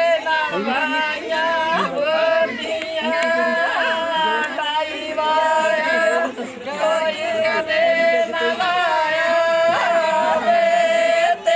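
Singing voice holding long, steady notes, broken by short pauses between phrases.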